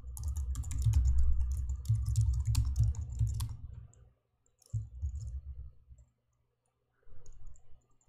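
Typing on a computer keyboard: a quick run of keystrokes for about three and a half seconds, then a few scattered key presses with short pauses between them.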